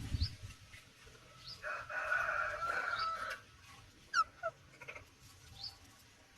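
Birds calling: one long harsh call lasting under two seconds, starting a little after one and a half seconds in, then a quick run of short falling chirps about four seconds in, with scattered high chirps throughout.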